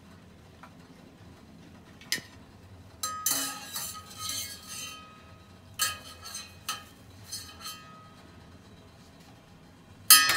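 Wire skimmer clinking and scraping against a steel cooking pot and a ceramic plate while boiled turnip slices are lifted out of the water, in a few separate knocks with a longer ringing scrape about three seconds in.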